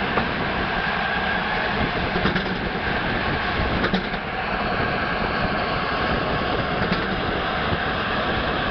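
Frick steam engine running a sawmill: a steady mechanical clatter, with a few sharp knocks about two, four and seven seconds in.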